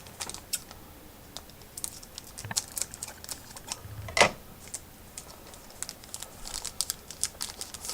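A trading-card pack being opened by hand: its wrapper crackles and the cards click as they are handled, a run of short irregular crackles and clicks with the loudest about four seconds in.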